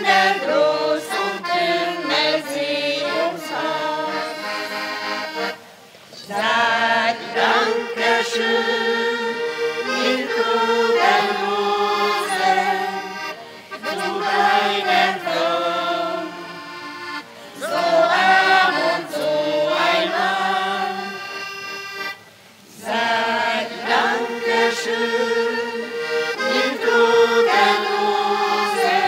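Accordion playing a traditional folk tune, breaking off briefly twice between phrases.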